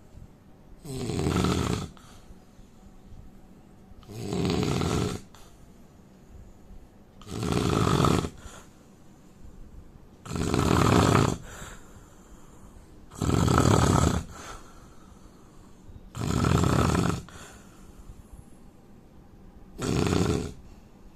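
A man snoring in a steady rhythm: seven snores, each about a second long, coming roughly every three seconds.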